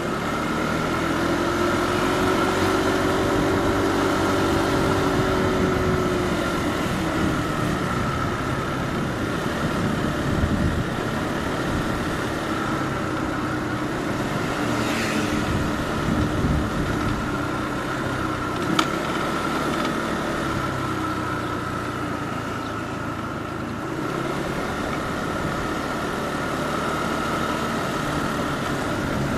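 Motorbike engine running steadily during a ride along a town street, heard from the bike itself, with road noise and other traffic. A single sharp click comes about two-thirds of the way through.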